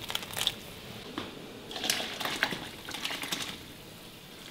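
Meatballs slid from a perforated steel skimmer and poured from a steel pot into a pan of broth: a run of irregular metal clinks, knocks and small splashes over the first three and a half seconds, then quieter.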